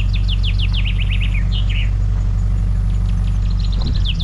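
A songbird sings twice: a quick run of falling high notes ending in two lower buzzy notes, starting again near the end. Underneath is the steady low rumble of a truck driving on a gravel road.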